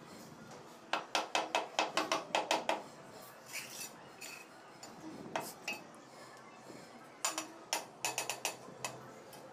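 Tapping on ceramic wall tiles to bed them into mortar: a quick run of about ten sharp clinks, about five a second, starting about a second in, a single tap in the middle, and another run of clinks near the end.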